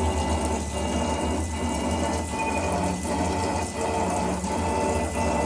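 Homemade CNC cylinder-block honing machine running: a steady motor hum with a hiss over it, pulsing about twice a second as the hone strokes.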